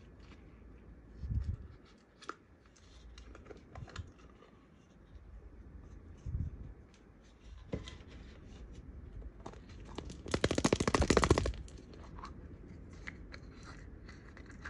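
Close-up handling of play-dough and a clear plastic toy capsule: soft squishes, dull thumps and small plastic clicks as the dough is peeled off and the capsule is handled. About ten seconds in comes a rapid rattling burst lasting about a second.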